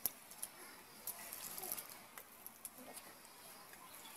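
Peeled, soft raw bananas being squeezed and broken apart by hand on a stainless steel plate: faint squishing with scattered light clicks of fingers and pulp against the metal.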